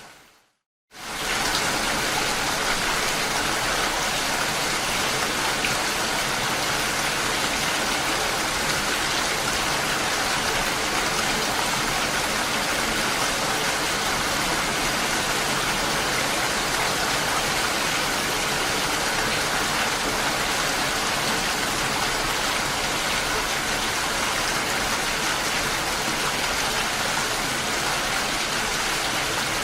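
Steady rainfall, an even hiss of drops on surfaces. It drops briefly to silence just under a second in, then fades back in: a splice between takes of the recording.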